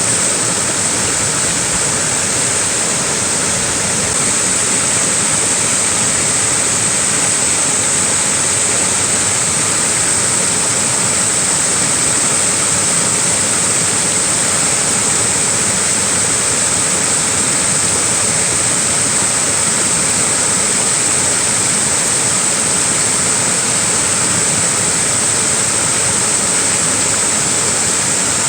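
Small waterfall pouring steadily, an even rush of falling water with a bright hiss.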